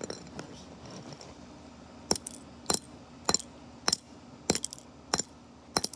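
Steel claw hammer striking the bare circuit board of a PNY Turbo Attache USB 3.0 flash drive on concrete: about seven quick, evenly spaced blows starting about two seconds in, roughly one every 0.6 seconds, each with a short metallic ring.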